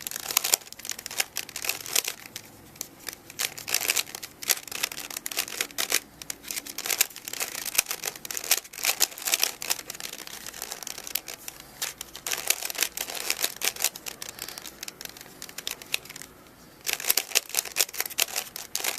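Rubik's Cube being turned fast by hand: rapid, irregular plastic clicks and clacks of the layers twisting during a speed solve, with a brief pause near the end.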